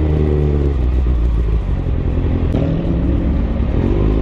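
Kawasaki sport bike's inline-four engine and exhaust at low road speed: a steady low drone whose pitch rises briefly at the start and again from about two and a half seconds in as the throttle opens.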